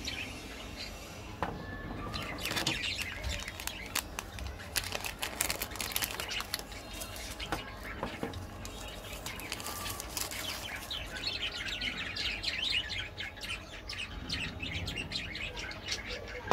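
Foil and plastic candy wrappers crinkling and crackling irregularly as chocolate bars are unwrapped and handled.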